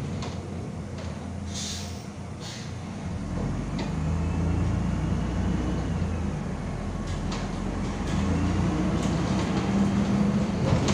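Cabin noise inside a MAZ-105 articulated diesel city bus under way: engine hum and road noise, with the engine note growing louder about three seconds in as the bus speeds up. Short clicks and rattles from the bus body and fittings come through it.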